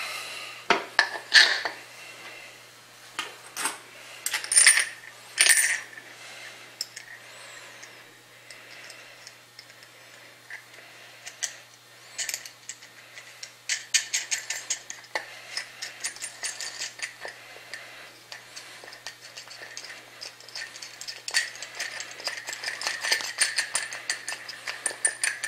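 Small metal hardware clinking and ticking as a hook is fitted through the pipe cap and its washer and nut are wound on until they stop: a few separate ringing clinks in the first several seconds, then runs of rapid ticking around the middle and again near the end.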